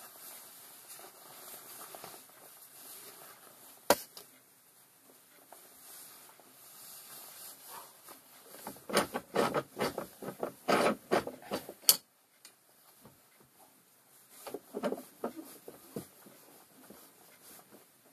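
Metal transmission parts being handled by hand: a toothed input-shaft gear assembly knocking and rubbing against metal. A single sharp click about four seconds in, then a quick run of knocks and clinks around the middle that ends in a sharp click, and a few lighter knocks later.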